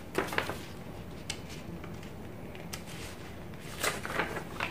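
A folded paper warranty leaflet rustling and crinkling as it is handled and unfolded, in short crackles a few times, with a cluster near the end.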